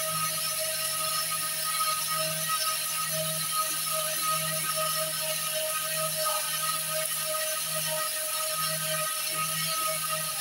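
Electric stainless-steel spice grinder running at speed while grinding chana dal (split chickpeas) into besan flour: a steady whine over a hiss. Its 300–400 watt single-phase motor is driving the blades.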